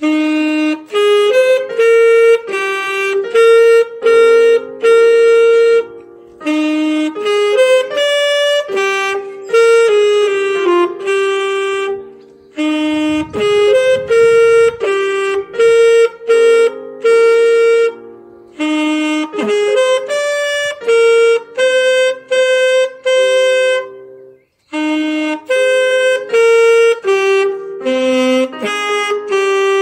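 Alto saxophone played by a first-year student, a simple melody in short phrases with breaths between them, accompanied on a digital piano.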